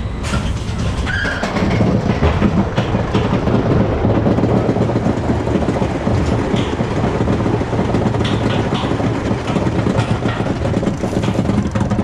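Preston & Barbieri roller coaster train climbing its chain lift hill and cresting the top, with a steady rapid clatter of the lift chain and wheels on the steel track.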